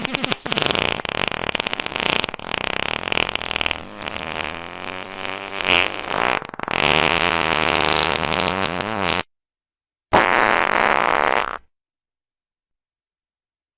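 Fart sound effects: a long string of sputtering farts for about nine seconds, some stretches buzzing at a steady pitch, then after a short silence one more fart about a second and a half long.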